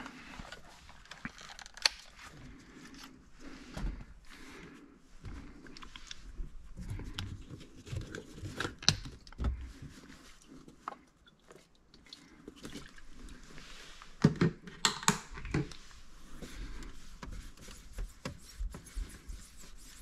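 Microfiber cloth wiping the inside of a car windshield with isopropyl alcohol: soft, uneven rubbing and scuffing with small clicks. A few louder scuffs and knocks come about three quarters of the way through.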